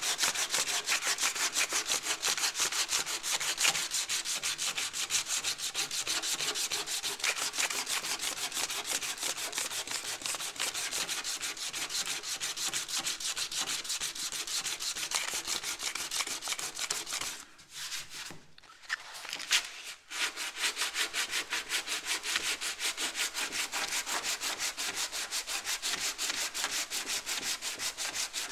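80-grit sandpaper rubbed by hand, without a block, over cured fiberglass body filler on a car door, working it back smooth. It is a fast, even back-and-forth rasping that stops for a couple of seconds about two-thirds of the way through, with a couple of light knocks in the gap, then carries on.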